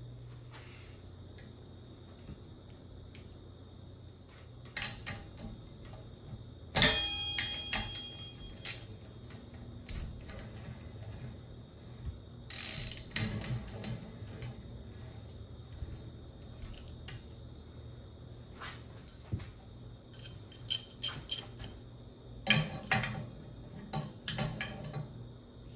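Irregular metallic clicking and clinking of hand tools on bicycle parts, with a loud ringing metal clank about seven seconds in and busier bursts of clicks near the end.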